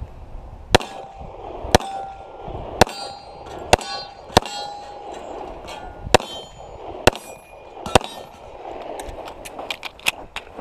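Eight shots from a Les Baer 1911 pistol in .45 ACP, roughly a second apart. Most are followed by the ringing clang of steel targets being hit. A few lighter clicks come near the end.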